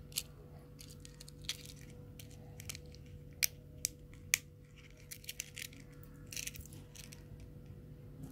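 A small clear plastic keychain case handled in the fingers: scattered light plastic clicks and taps, a few sharper ones in the middle, with a metal ball chain clinking.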